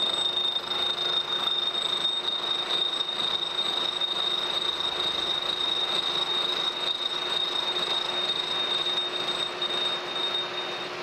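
Kearney & Trecker 3H horizontal milling machine running, its gear cutter cutting the teeth of a cast iron spur gear blank: steady machining noise with a high, constant whine that stops near the end.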